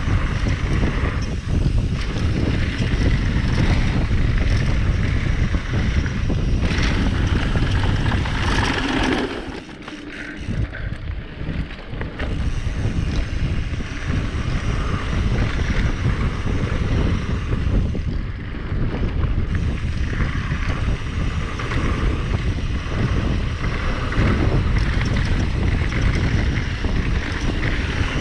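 Wind buffeting the microphone of a mountain bike's handlebar camera, over the rumble and rattle of the bike rolling fast down a dirt trail. The noise eases briefly about ten seconds in.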